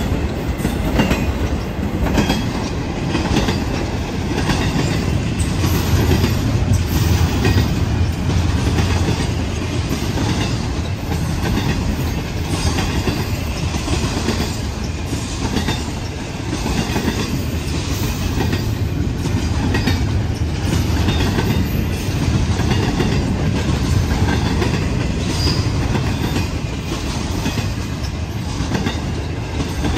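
Florida East Coast Railway freight train's cars rolling past close by, a steady rumble with the steel wheels clacking over the rail joints again and again.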